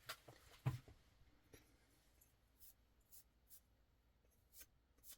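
Faint handling sounds of a folding-knife blade being wiped clean: soft brushing strokes and a few light ticks, the clearest in the first second.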